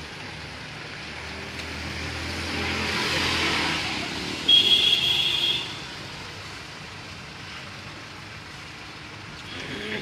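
A vehicle passes by on a rain-wet road over steady rain. Its tyre hiss and low hum swell for a few seconds and fade by about six seconds in. A brief high-pitched tone, the loudest moment, comes about four and a half seconds in.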